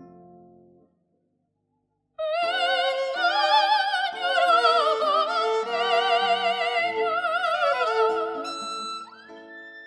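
Soprano singing with a wide vibrato, accompanied by violin and guitar. After about a second of silence the voice comes in about two seconds in with a falling phrase, then dies away near the end.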